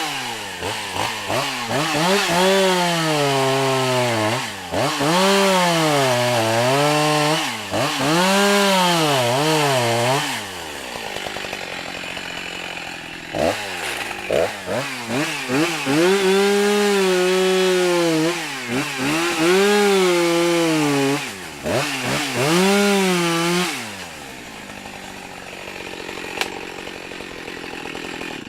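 Two-stroke chainsaw making plunge cuts into a thick rhododendron stem. Its engine pitch rises and falls over and over as the chain goes in and out of the wood, with a quieter lower-revving stretch in the middle and again near the end.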